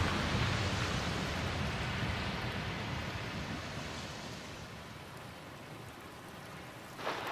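Churning water after a big splash, settling and fading steadily over several seconds. A short fresh rush of noise starts near the end.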